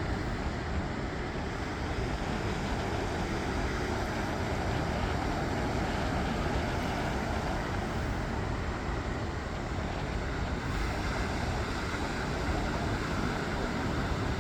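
Steady rushing noise of wind and sea surf, with a heavy low rumble and no distinct breaks.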